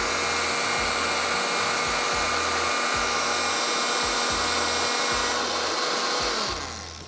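Electric kitchen blender running steadily, blending a yogurt marinade with raw onion, green chillies, cashews and desiccated coconut; the motor winds down and stops near the end.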